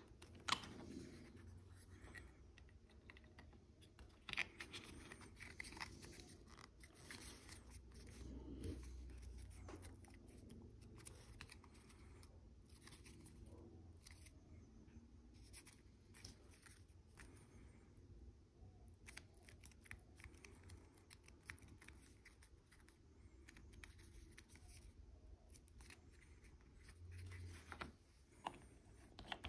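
Faint clicks and scrapes of small plastic model-kit parts being handled and pressed together on a cutting mat, scattered through quiet room tone.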